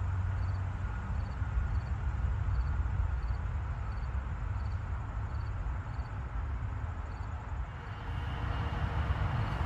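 Steady low outdoor rumble of distant city traffic, with a faint high ticking about three times a second; a faint steady high tone joins near the end.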